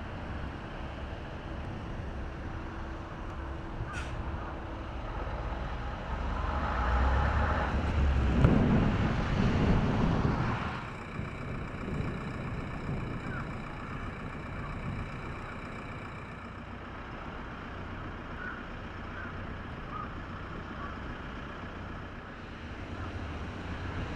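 Outdoor roadside ambience with distant traffic. A road vehicle passes about seven to ten seconds in, growing loud and then fading, and a few faint short chirps follow in the steady background.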